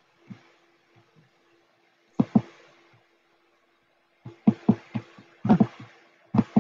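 Irregular sharp knocks: a pair about two seconds in, then a quick run of them from about four seconds, over a faint steady hum.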